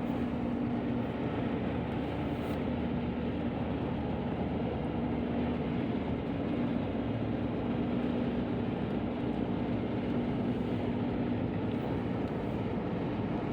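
Steady road noise inside a moving car: tyres on a wet road and the engine's low, even hum, with no change in pace.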